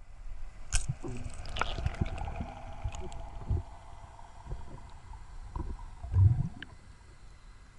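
Underwater recording: scattered knocks and clicks with a steady hum underneath, and one heavy low thump about six seconds in.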